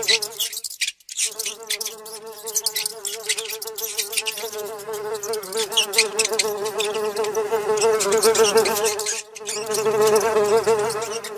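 Housefly buzzing sound effect: a steady, wavering hum that breaks off briefly about a second in and again near nine seconds. Many quick, scratchy clicks sound over it.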